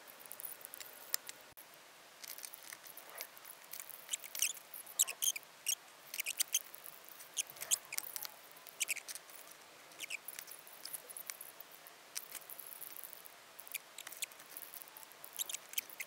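Light, irregular clicks, ticks and small scrapes of hand tools and small parts being handled during circuit-board repair, sometimes several in quick succession.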